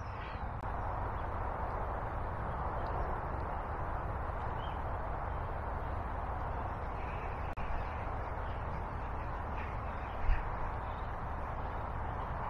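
Steady rushing of the River Itchen's current, with a few faint bird calls. A single low thump about ten seconds in.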